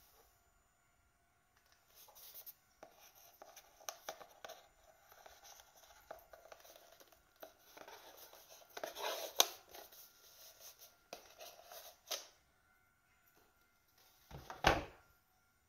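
Hands untying a cord knot and sliding the red cord off a paper-covered cardboard knife box: soft rustling and rubbing with small clicks, louder around the middle. Near the end the box is set down onto other boxes with a single dull thump.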